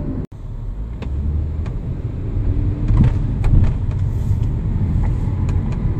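Inside a Kia K7 (Cadenza) on the move: steady low road and tyre rumble with irregular sharp ticks and creaks, the rattle of its panoramic sunroof.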